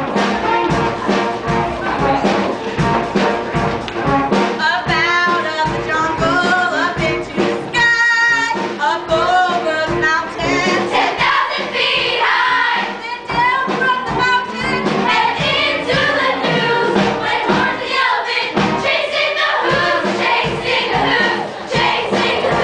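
Stage-musical cast singing together over upbeat instrumental accompaniment, with a high note held briefly about eight seconds in.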